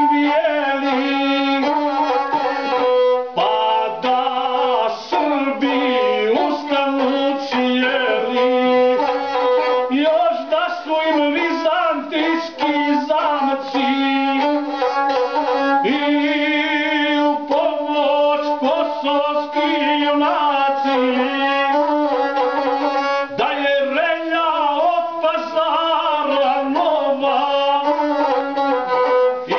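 A gusle, the Serbian single-string bowed folk fiddle, bowed continuously while a man sings an epic song to it, the string's tone gliding and ornamenting around his voice.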